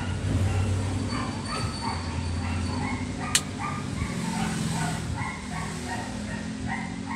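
A dog barking repeatedly in short yaps over a low steady hum, with one sharp click about three seconds in.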